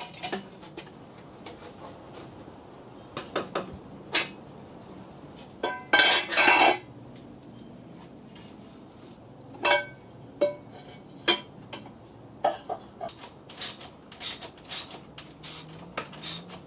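Thin aluminum intercooler pipes being handled and fitted: scattered sharp metallic clinks and knocks of pipe against metal. There is a brief rattle about six seconds in, and the clinking gets busier near the end.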